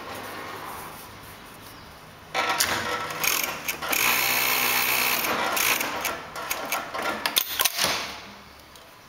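Brother FD4-B277 three-needle coverstitch sewing machine stitching fabric at speed for about six seconds, starting a couple of seconds in after a low motor hum. It ends in a quick run of sharp clicks before stopping.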